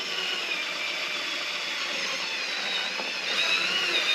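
Drill running at slow speed, driving a thread tap down a bolt hole to clean out the old crud from the threads. A steady motor whine that wavers in pitch and gets a little louder a bit after three seconds in.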